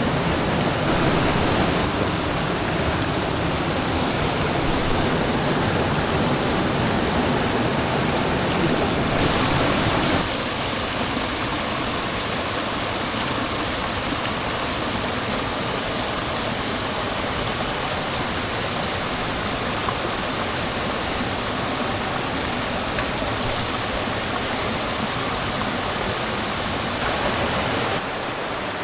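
Mountain headwater stream rushing steadily over rocks, a continuous full water noise. It is louder and deeper for the first ten seconds, then drops to a somewhat lighter, thinner rush.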